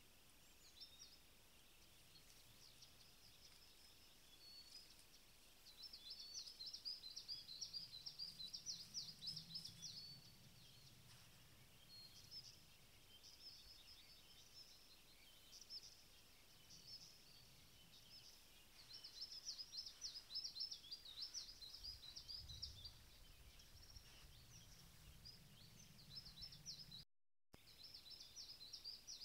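Faint songbirds singing: repeated rapid, high trilling phrases coming in bursts, with a short break in the sound near the end.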